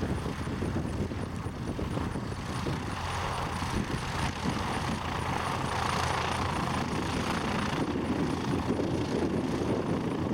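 Cessna 172's piston engine and propeller running at low taxi power, a steady drone as the plane rolls slowly toward the listener.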